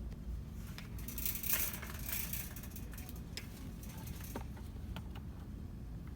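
Rustling and crinkling of merchandise being handled, dense for about a second and a half near the start, then a few light clicks, over a low steady store hum.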